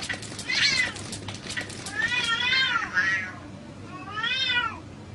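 A cat meowing three times: a short meow, then a long drawn-out one, then another, each rising and falling in pitch.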